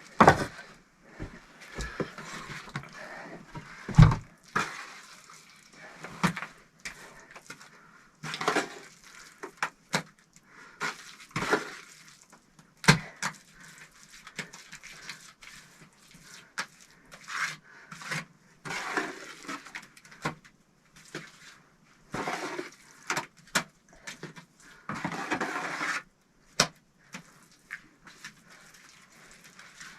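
Bricklaying: bricks knocked and set into clay mortar, giving irregular hard knocks and clacks with stretches of scraping between them. The loudest knocks come near the start and about four seconds in.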